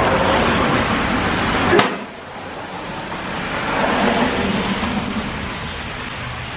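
Tyre hiss of cars passing on a wet road, swelling and fading twice, with a sharp click a little under two seconds in just before the sound drops suddenly.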